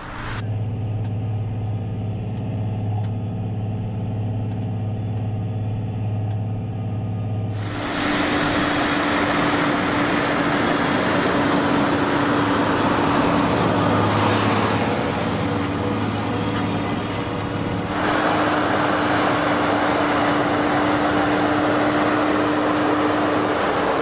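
Fendt 939 Vario tractor's diesel engine running steadily under heavy load while pulling a deep plough. About seven seconds in the sound becomes louder and fuller, then shifts again near 18 seconds.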